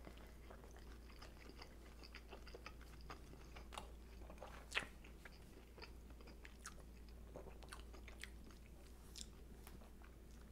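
Faint chewing of a bite of toasted sub sandwich: soft wet mouth sounds and small crunches of the bread, with two louder crunches about four and five seconds in.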